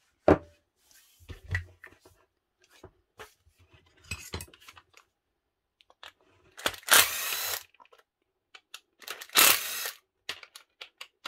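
Small metal parts clinking and knocking as they are set down on a bench, then a cordless driver running in two short bursts, about six and a half and nine seconds in, backing screws out of a drill's plastic housing.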